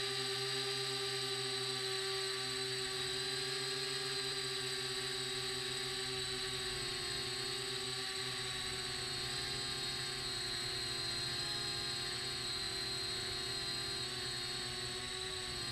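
Small wooden H-frame quadcopter's electric motors and propellers whining steadily in flight, heard from the camera on board, the pitch drifting slightly with throttle.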